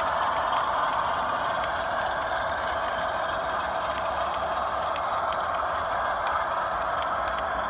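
OO gauge model train of InterCity coaches rolling along the track: a steady rumble of wheels on rail with faint ticks from the rail joints.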